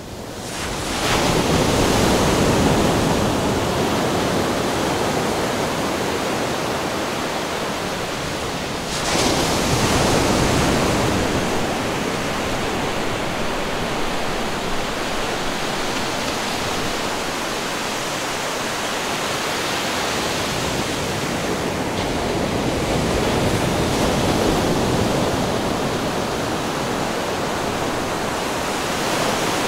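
Ocean surf: a steady wash of breaking waves, swelling louder about a second in and again about nine seconds in.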